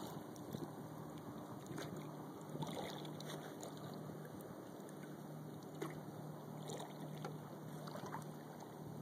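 Small waves lapping and splashing against a kayak's hull, with irregular soft slaps and trickles.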